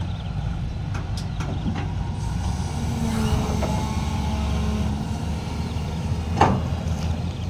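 SANY hydraulic excavator's diesel engine running steadily while its boom and arm are moved, the engine note firmer for a couple of seconds in the middle. A single sharp knock about six and a half seconds in.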